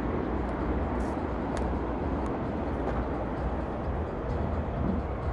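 Steady outdoor background noise from an amateur camcorder: a low rumble and hiss with a few faint clicks.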